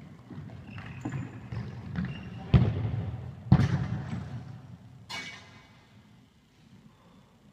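Echoing thuds of a ball struck and bouncing in a large sports hall, two sharp hits about a second apart near the middle, with players' distant calls.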